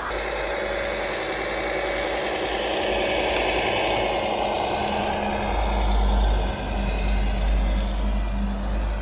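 Radio-controlled scale construction machine running: steady whirring of its electric drive and hydraulics. A steady hum and a heavier low rumble join about five seconds in.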